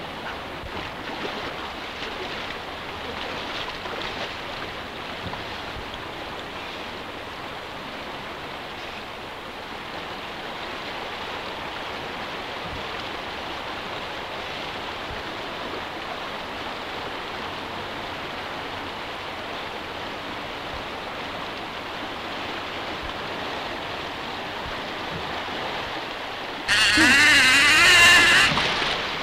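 Steady rush of river water flowing. About 27 s in, a man falls into the river: a loud splash with a wavering cry, lasting about two seconds.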